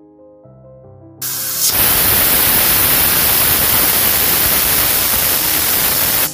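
Soft piano music, then about a second in a Pigeon aluminium pressure cooker lets off steam with a loud, steady hiss past the lifted weight on its vent. This is one of the whistles that mark the chana dal cooking under pressure. The hiss cuts off suddenly.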